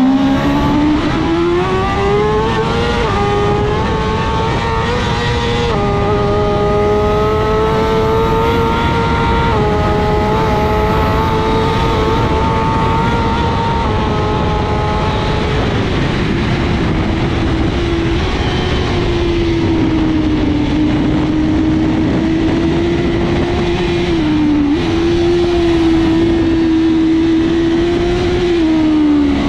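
BMW S1000RR inline-four superbike engine at race pace, heard onboard. It revs up hard through two quick upshifts and holds high revs for about ten seconds. The revs then drop about halfway through, and it runs at lower, slightly varying revs, all over a heavy rush of wind noise.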